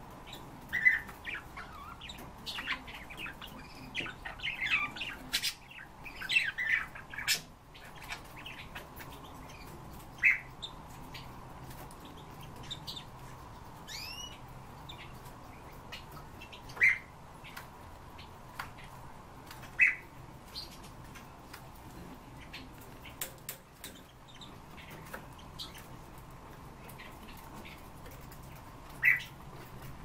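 Caged songbirds calling: a busy run of short chirps for the first several seconds, then single sharp calls every few seconds and one rising whistle, with scattered light clicks.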